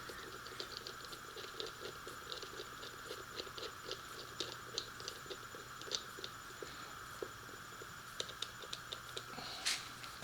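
Ratchet wrench clicking in short runs as bolts are tightened back up, over a faint steady hum, with a brief louder scrape near the end.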